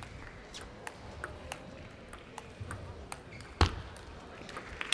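Table tennis ball clicking off rackets and table in a rally, a sharp tick every half second or so, with one much louder knock about three and a half seconds in.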